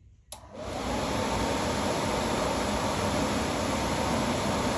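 Suburban SF-30 RV furnace powered up from a battery: a click, then its blower fan spins up within about half a second and runs with a steady rush of air and a faint whine.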